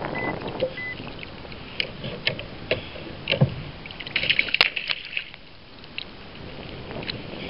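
Water splashing and knocks against the kayak as a Spanish mackerel is handled and lifted from the water by the tail, busiest about four to five seconds in. Two short beeps sound near the start.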